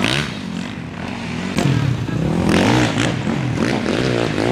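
Enduro dirt bike engines revving up and down as the bikes ride the course, the pitch rising and falling with throttle and gear changes. They get louder about two and a half seconds in.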